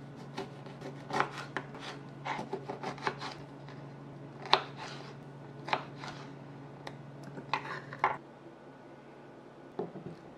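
Kitchen knife slicing a lemon on a wooden cutting board: a run of irregular knife cuts and taps against the board, the loudest about four and a half seconds in. Near the end, a short softer scrape as a saucepan is moved on a glass-top stove.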